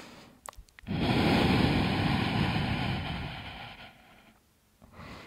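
A long, audible deep exhale lasting about three seconds, then a fainter breath near the end.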